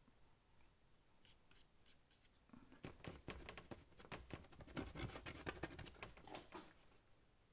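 Faint, scratchy strokes of a paintbrush working paint onto paper, a quick run of them starting a couple of seconds in and stopping near the end.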